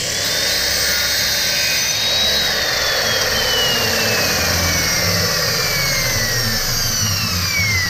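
A woodworking power tool running loud and steady, with a high whine that slowly falls in pitch.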